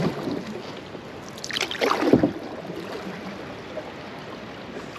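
A canoe paddle stroke: water swishes and splashes once, about two seconds in, with a soft water hiss around it.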